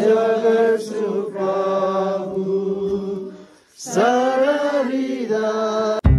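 Voices singing a Nepali Christian hymn of praise unaccompanied, in two long held phrases with a short breath between them a little past halfway. The singing cuts off abruptly near the end.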